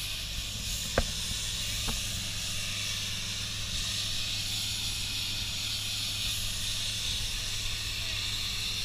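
Steady hiss of compressed air over the low, even drone of the media-blasting air compressor, with two sharp clicks about one and two seconds in.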